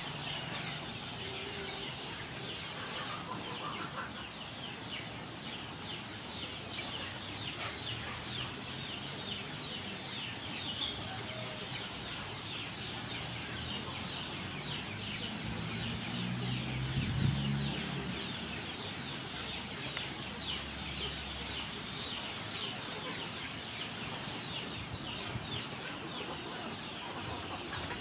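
Chickens clucking while foraging, over a constant, rapid high chirping. A louder low sound swells about seventeen seconds in.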